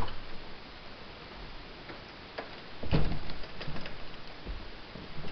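Clicks and knocks of someone walking through a house while holding the camera, with a cluster of knocks and clicks about three seconds in and single thumps near the end.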